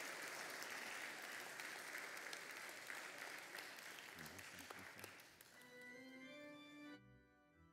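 Congregation applauding, the clapping dying away over about five seconds. Near the end an organ begins the hymn introduction with sustained chords.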